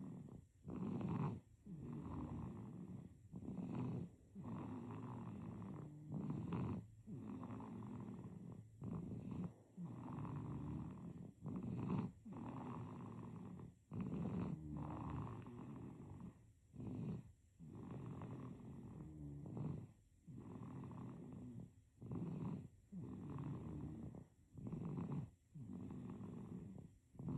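Baby snoring in sleep: a low snore on each breath, the breaths coming quickly and evenly, about every one to two seconds, with short silent gaps between them.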